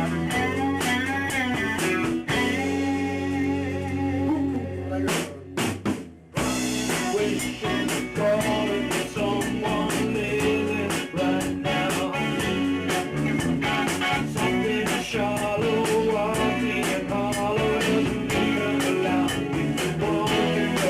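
A band rehearsing live, with guitar and drum kit. About two seconds in, a chord is held and dies away. There is a short break about five to six seconds in, then the whole band comes back in with steady drum hits.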